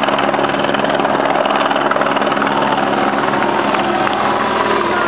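Steady drone of a helicopter overhead with a rapid, even beat, mixed with the engines of escort motorcycles approaching along the road.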